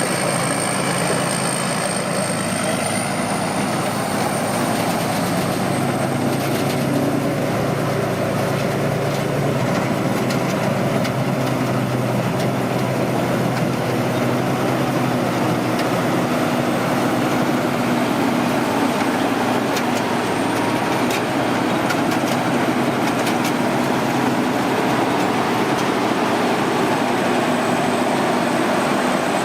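Combine harvester running steadily while harvesting rice, its engine note constant, with a thin high whine over it.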